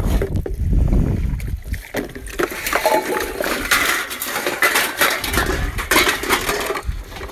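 Stainless-steel plates and cups clinking and scraping against each other as they are picked up and handled. Wind rumbles on the microphone during the first couple of seconds.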